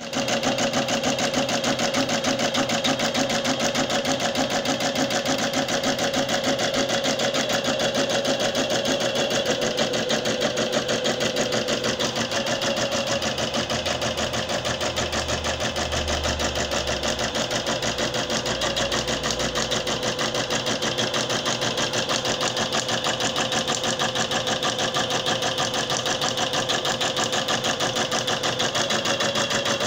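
Janome MC230 embroidery machine stitching out a design: a steady, rapid, even needle rhythm.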